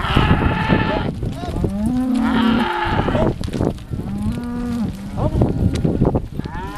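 A herd of cows mooing, many calls overlapping one after another; some are low and drawn out, others higher and shorter.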